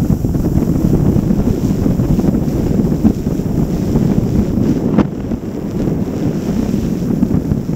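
Wind buffeting the microphone of a camera carried on a flying multirotor drone: a steady, dense low rumble, with one sharp click about five seconds in.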